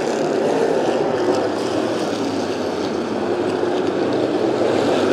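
A field of hobby stock race cars running together through a turn on a dirt oval, their engines making a steady loud sound at racing speed.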